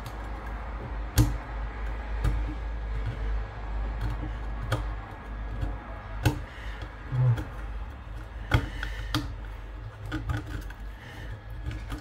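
Irregular sharp clicks and light scraping from a tool chipping hardened glue out from around a metal detector's speaker, over a steady low hum.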